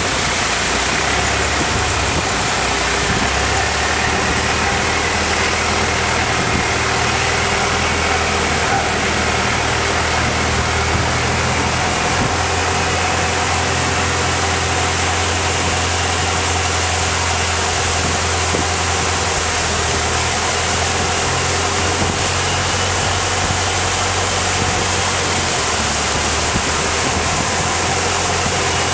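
Engine of a Thai longtail boat running steadily under way, a loud, even drone.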